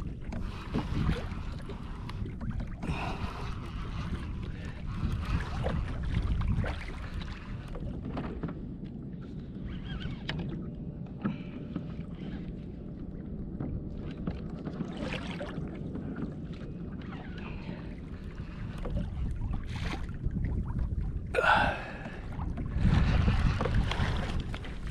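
Wind rushing on the microphone and water sloshing against a fishing kayak's hull, a steady low noise with scattered small knocks and a brief louder sound about 21 seconds in.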